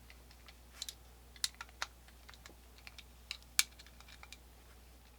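Faint, irregular small clicks of a screwdriver working the grip screws of a Colt black powder revolver, turned back and forth where a screw is tight.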